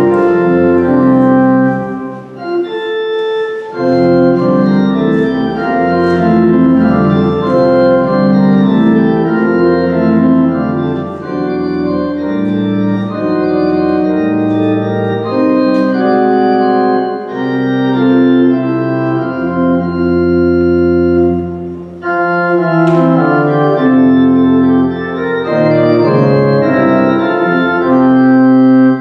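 Church organ playing slow, sustained chords in phrases, with brief breaks about two seconds in and again near twenty-two seconds.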